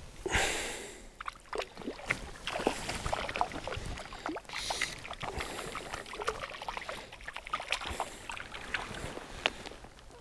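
A hooked brown trout splashing at the surface while being played on a fly rod: irregular small splashes and sloshes of water with sharp ticks scattered through, and a larger splash about half a second in.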